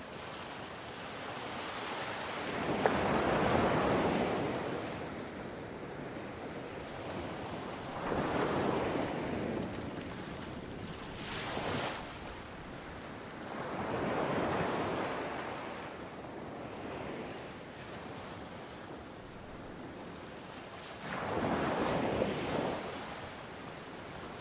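Ocean waves breaking and washing up the shore. Four surges swell and fade roughly every six seconds over a steady hiss of surf.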